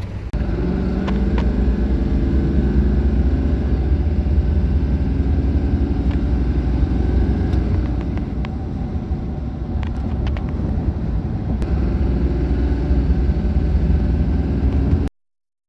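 The 2002 Silverado's 6.6 L Duramax turbo-diesel V8 running hard under wide-open throttle at highway speed, heard from inside the cab as a loud, steady engine and road rumble, with its pitch climbing early on; this is a full-load test for the lack of power behind code P1093. The sound cuts off suddenly near the end.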